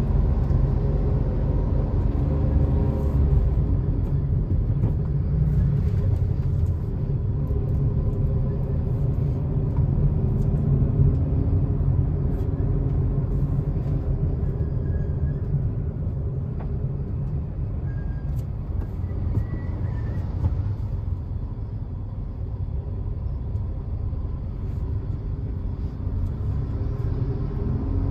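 Interior cabin noise of a Suzuki hatchback driving along a road: a steady low engine and tyre rumble, easing slightly after about fifteen seconds.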